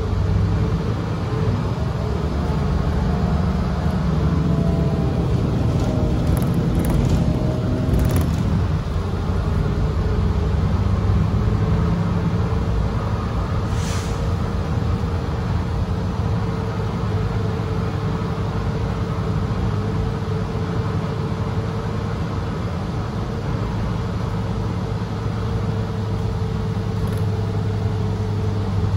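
Interior of a 2017 Gillig Low Floor BRT 40 ft transit bus under way: a steady low engine and road rumble with a constant hum. A whine climbs in pitch for several seconds in the first third, and a few sharp rattles or clicks come from the cabin, one about halfway through.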